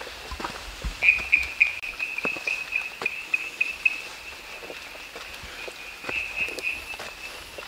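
A steady high-pitched animal call, pulsing rapidly and loudest between about one and four seconds in, with scattered crunches of footsteps on a forest trail.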